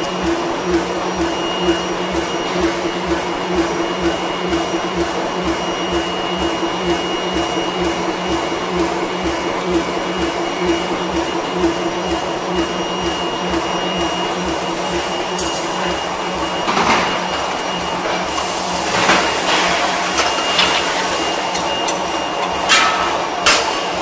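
Hot ring rolling machine running as it rolls a red-hot steel ring between rotating rolls: a steady mechanical drone with a hum and a low pulse repeating a couple of times a second. Several sharp metallic knocks come in the last third.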